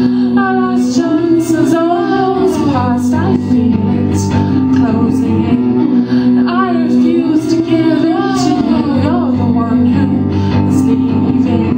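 Live music: a singer over a held chordal instrumental accompaniment, with the voice gliding and wavering in pitch.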